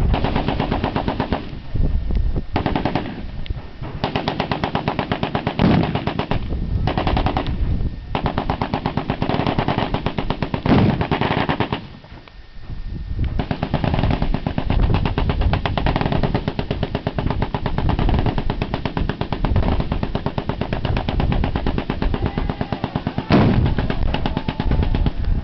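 Several machine guns firing long full-auto bursts, overlapping and nearly continuous, with a brief lull about halfway through. Near the end, a single heavy blast as the explosive-laden RV target detonates.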